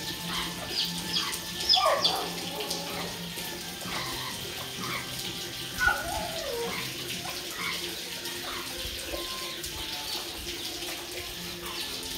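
Young chicks peeping in short high chirps, busiest in the first few seconds, with an adult hen giving lower falling calls about two and six seconds in, over a steady rushing background like running water.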